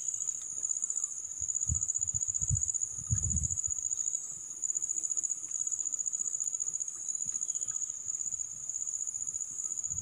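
A steady, high-pitched insect trill like that of crickets, running without a break. There are a few soft low thumps about two to three seconds in.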